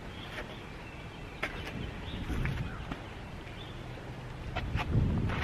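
Quiet outdoor background with a low rumble and a few faint clicks and rustles as slime balls are picked up and handled.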